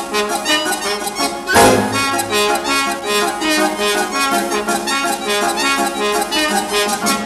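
Lively instrumental cartoon soundtrack music with quick, bouncy repeated notes; a bass line and a cymbal-like splash come in about a second and a half in.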